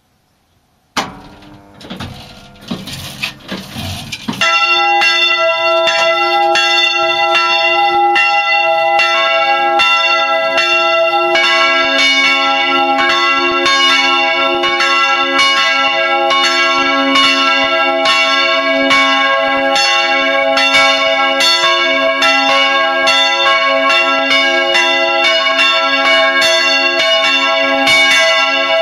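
Church bells starting a full peal: a few irregular clanks as the swinging bell's clapper begins to touch, then from about four seconds in loud, regular strikes of the bell ringing on. A second bell joins at about nine seconds and a third shortly after, so the full peal rings together.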